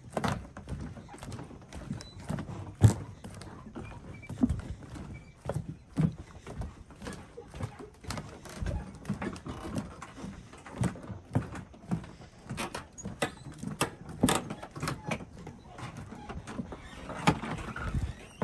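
Footsteps walking on the wooden planks of a floating dock, an uneven knock about once a second.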